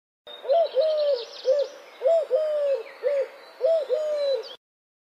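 Dove cooing: low coos in a short-long pattern, repeated three times, with faint chirping of other birds behind. It cuts off suddenly near the end.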